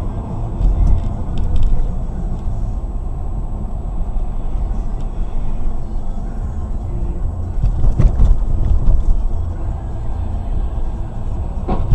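Car on the move: steady low road and engine rumble, with brief knocks about eight seconds in and again just before the end.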